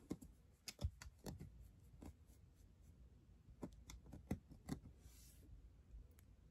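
Faint, sharp clicks and taps, about ten of them at uneven intervals, with a brief soft rustle about five seconds in.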